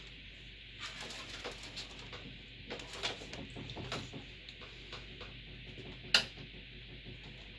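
Light clicks and taps of hand work on a desktop PC's parts during motherboard removal, with one sharp click about six seconds in, over a steady hiss.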